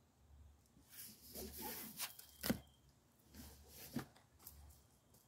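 Tarot cards being handled: a stretch of papery shuffling and sliding, then a sharp tap about two and a half seconds in and a lighter rustle and tap about four seconds in.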